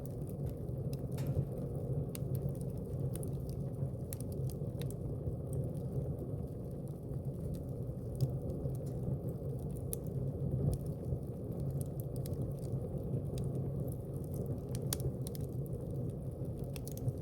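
Wood fire burning in a fireplace: a steady low rush of flames with frequent sharp crackles and pops from the burning logs.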